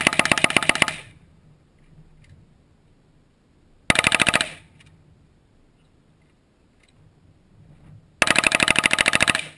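Rifle fire in rapid strings of shots: one string stops about a second in, a short one comes about four seconds in, and a longer one near the end.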